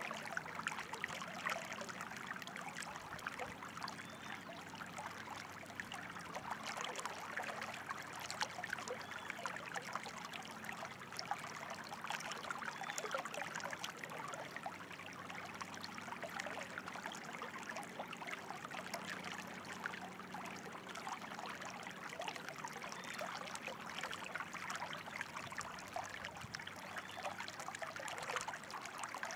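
Running water trickling and babbling steadily, like a small stream over stones, with a dense patter of tiny splashes.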